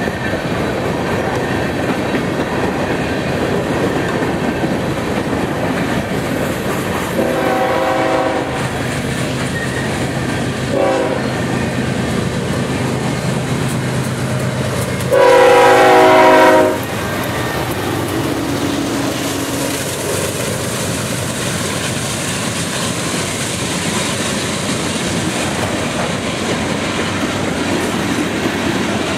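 A GE ES44DC diesel locomotive's air horn sounds three blasts over the steady rumble of a passing freight train: one about 7 seconds in, a short one about 11 seconds in, and the loudest and longest about 15 seconds in as the locomotives go by. Afterwards the freight cars roll past with a clickety-clack.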